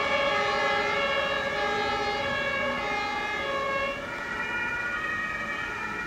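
Several German two-tone emergency sirens from the fire brigade convoy's fire engines and ambulance sound together out of step, each alternating between a high and a low note. They grow fainter as the vehicles drive away, with a small drop about four seconds in.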